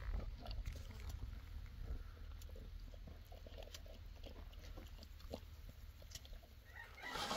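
Scattered faint clicks and rustles over a low rumble, then a rooster starts crowing near the end.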